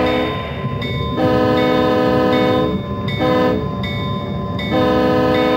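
Several-note chime air horn of a Burlington E-unit streamlined diesel passenger locomotive blowing the grade-crossing signal: the end of one long blast, a second long blast, a short toot, then a final long blast starting near the end, over a steady diesel rumble.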